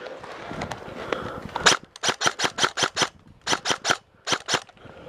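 Airsoft guns firing: a single shot, then a quick run of about seven shots at roughly six or seven a second, followed by short bursts of three and two sharp cracks.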